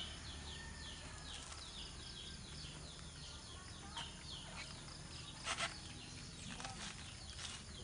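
Small birds chirping in quick, repeated short notes that fall in pitch, several a second, with a few knocks of husked coconuts being picked up and handled, the loudest about five and a half seconds in.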